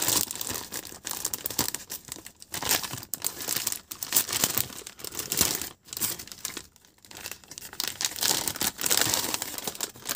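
Clear plastic packaging bag crinkling and rustling in irregular bursts, with short pauses, as it is pulled open by hand to take out a circuit board.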